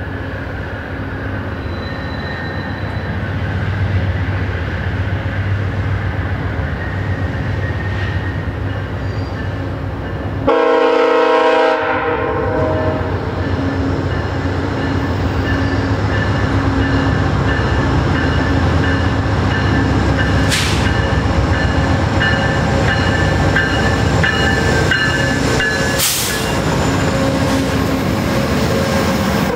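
VIA Rail GE P42DC diesel locomotives approaching and running past, the lead engine's horn sounding one long blast of about two seconds, about ten seconds in. Around it the diesel engines run and the locomotives' and coaches' wheels roll on the rails as the train goes by.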